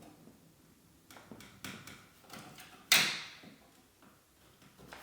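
Light clicks and taps of hand tools being handled against a wooden door, then one sharp knock about three seconds in.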